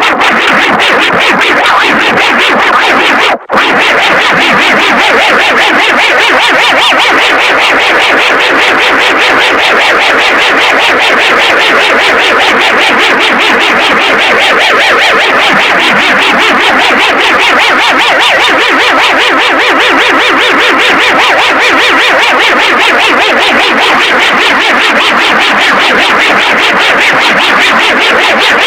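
Loud, harsh synthesized emergency-alert alarm tone, pulsing rapidly and without let-up, with a brief break about three and a half seconds in.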